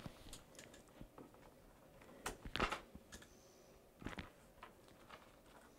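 Faint, scattered small clicks and brief rustles: light handling noise, several separate ticks a second or so apart.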